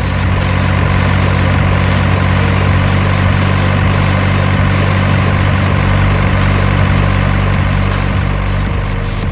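An engine running steadily with a low, even hum, like a heavy construction vehicle idling.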